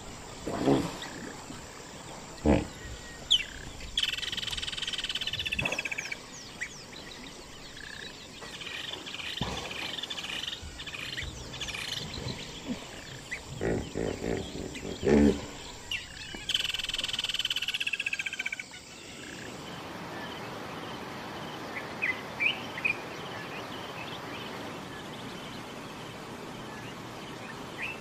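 A pod of hippos in the water giving deep grunts and longer honking calls, several of them loud. About two-thirds of the way through the calls stop and a quieter riverside background follows, with a few short bird chirps.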